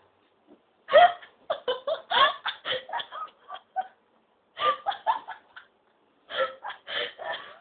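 A person hiccupping amid laughter, in three bouts of short, quick pulses.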